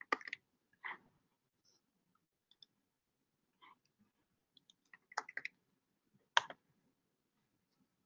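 Faint, scattered clicks from a computer keyboard and mouse, entering a git repository URL at a terminal. Single clicks come at irregular intervals, with a quick run of several clicks about five seconds in and a sharper single click just after.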